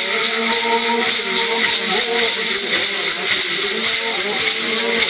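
Mbaracá gourd rattles filled with maize kernels, shaken in a steady fast rhythm, with men chanting long held notes over them.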